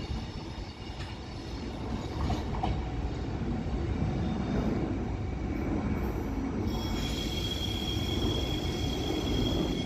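Passenger train pulling out of the station and rolling away over the rails, with a steady rumble. A high, steady wheel squeal sets in about seven seconds in.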